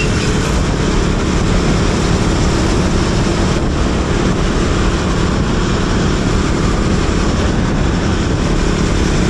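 Wind rushing and buffeting over the microphone of a moving motorcycle, with the steady hum of its engine underneath.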